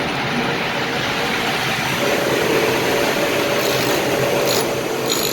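Electric grinding-stone motor (bench grinder) running steadily with a hum. Near the end come a few short, high scrapes, as of the drill bit just touching the stone.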